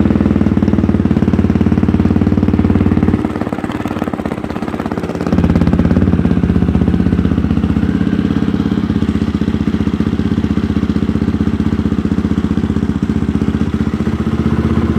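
2005 Honda CRF450R's single-cylinder four-stroke engine running steadily just after its rebuild and first start. About three seconds in the engine note drops away for roughly two seconds, then picks back up to the same steady running.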